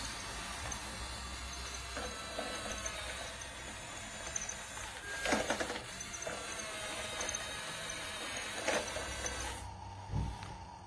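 Remote-controlled toy bulldozer's small electric motors and gears whirring steadily, with a hiss, and two short knocks about five and nine seconds in.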